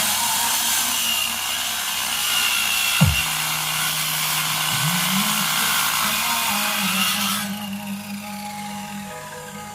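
Electronic music track played back for a sound check: a dense hissing noise layer over held low bass notes that glide between pitches, with a sharp falling bass sweep about three seconds in. The hiss cuts away about seven and a half seconds in, leaving the bass.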